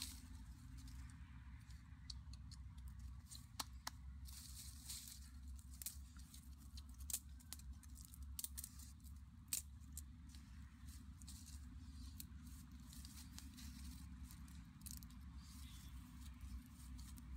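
Small wood fire with snails in its embers crackling faintly, a sharp snap now and then, over a steady low rumble.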